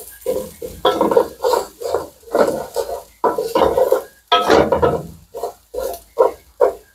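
Wooden spoon stirring and scraping chopped onions around a nonstick pot in short strokes, about two a second, as they fry in hot bacon grease.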